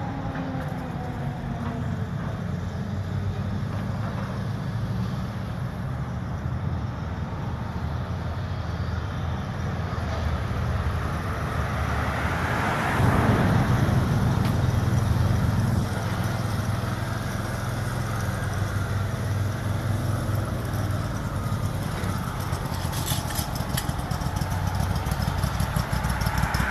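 Engines running steadily with a low rumble, swelling louder about halfway through.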